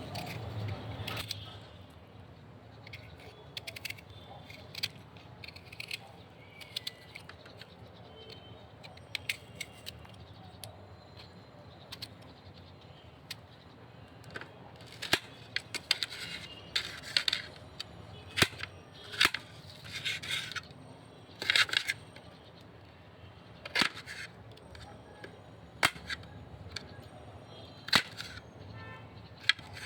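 Kitchen food-preparation sounds: a run of sharp clicks and taps, with short noisy bursts, loudest from about halfway through.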